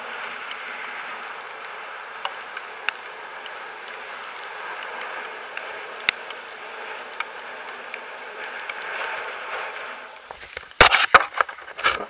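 Steady rushing noise during a BASE jumper's canopy descent, with scattered faint ticks. Near the end, a run of loud thumps and rustling as the jumper lands in the grass.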